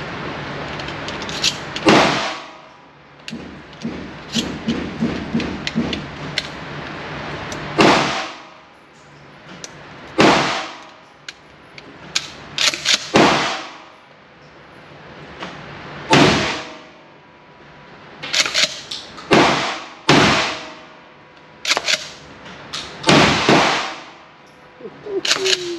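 Gunshots in an indoor shooting range: a pump-action shotgun and guns in nearby lanes firing, about eight loud reports a few seconds apart, each ringing off the walls, with lighter clicks and knocks between.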